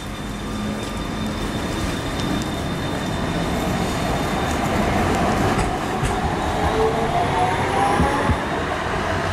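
Croydon Tramlink tram running past on the track as it pulls away from the stop: a steady rumble of wheels and running gear, with faint whining tones gliding in pitch in the last few seconds.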